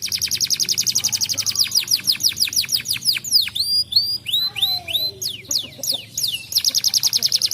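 Domestic canary singing: a fast trill of quick high notes, each sweeping downward, slowing about halfway through to a few separate upward-hooked notes, then breaking into a fast trill again near the end.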